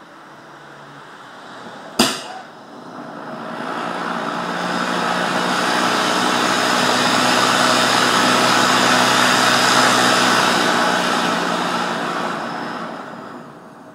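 PMMA and gaseous-oxygen hybrid rocket motor firing: a low burn, then a sharp bang about two seconds in, after which the roar of the exhaust builds over a few seconds, holds steady, and dies away near the end as the burn stops.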